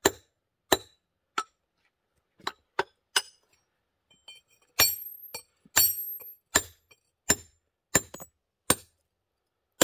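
Club hammer striking a firesharp nicker, a steel stone chisel, to split a sandstone kerb stone along its bed: about a dozen sharp blows, roughly one a second with a short pause in the middle. The later blows ring with a high metallic tone.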